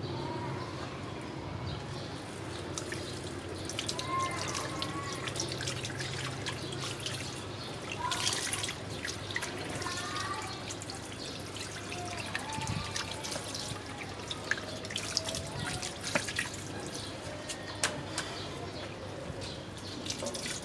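Water splashing and dripping as a young monkey is washed by hand, water scooped from a basin and poured over its fur, with many small irregular splashes and drips. A few faint high calls come through now and then.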